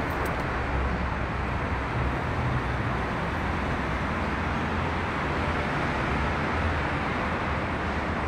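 Steady rumble and hiss of road traffic, with no distinct events.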